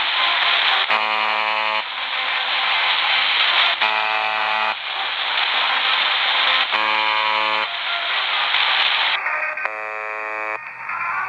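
UVB-76 ('The Buzzer') Russian shortwave station on 4625 kHz, received over an SDR: four short buzz tones, each under a second and about three seconds apart. Between the buzzes a loud hiss of static and pirate-radio interference fills in.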